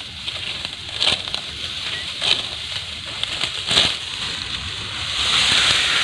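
Dry ripe wheat stalks being cut by hand close to the ground: three crisp, crackling cuts a little over a second apart, then a longer rustle of dry straw near the end as the cut armful is gathered and lifted.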